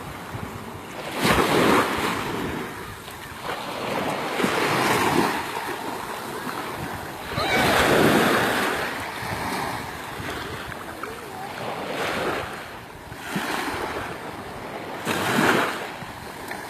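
Sea waves washing onto the beach, swelling and fading about five times, every three to four seconds.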